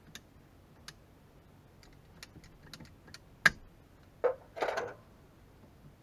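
Scattered light clicks and clinks of hand work at the connections on top of an electric water heater, with one sharp knock about three and a half seconds in and a short scraping rustle about a second later.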